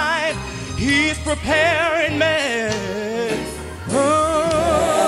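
A man sings gospel live into a handheld microphone: long held, wordless notes with wide vibrato, scooping up into each note. The voice dips in pitch and level a little past halfway, then swoops up into a new held note.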